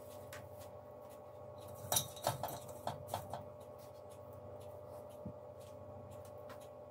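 Fresh pine shoots being placed by hand into a cooking pot: a few light clicks and taps around the middle, over a faint steady hum.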